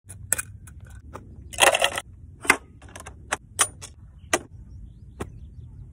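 Sharp clicks and clacks from a wooden pochade box on a tripod easel and metal paint tubes being handled: about a dozen separate knocks, with a short rattle before the two-second mark, over a low steady rumble.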